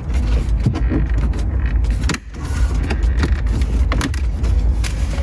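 Plastic clicks and creaks as a Toyota Tacoma's dash bezel is pulled loose by hand and its clips pop free, over a steady low rumble.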